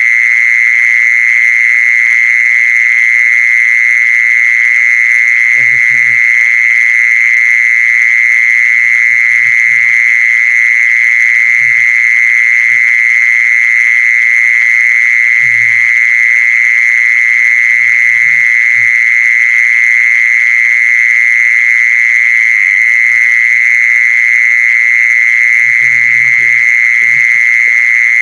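A loud, steady, high-pitched buzzing trill that never breaks, with a few soft low knocks now and then.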